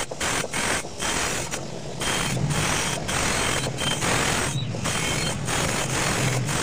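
Wire brush wheel on a bench-mounted electric motor scrubbing a bent metal pipe: a steady harsh scraping hiss over the motor's hum, broken by many short breaks as the pipe shifts on the wheel.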